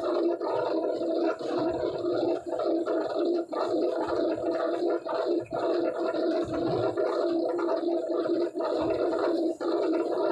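A machine or motor running with a steady drone that dips briefly about once a second.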